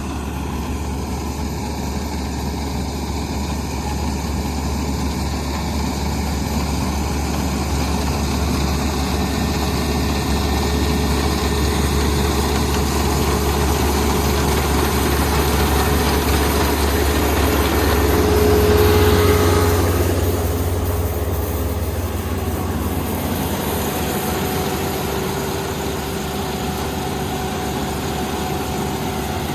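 Kubota combine harvester's diesel engine running steadily while harvesting rice, growing louder to a peak a little past the middle and then easing off.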